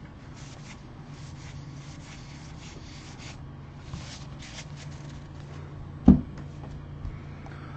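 Baseball trading cards flipped and shuffled by hand, a run of soft, quick paper flicks, then a sharp tap about six seconds in as a squared-up stack of cards is set down on the tabletop, over a steady low hum.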